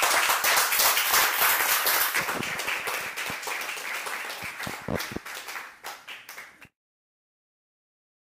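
A small audience applauding, many hand claps together, loudest at first and thinning out over about six seconds, then cutting off abruptly to dead silence.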